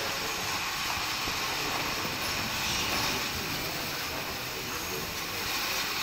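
Steady, even hum and hiss of factory-floor machinery.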